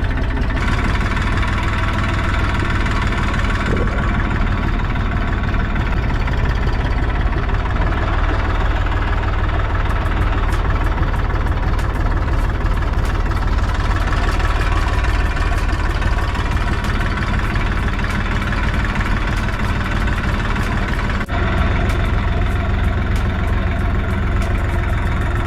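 Farm tractor engine running steadily, heard up close from on board.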